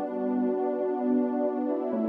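Ambient background music of sustained notes that change pitch every half second or so.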